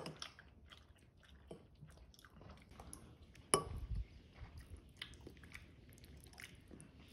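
Quiet eating sounds: chewing and small clicks of a metal fork against a ceramic plate of pasta. A sharper clink of the fork on the plate comes about three and a half seconds in.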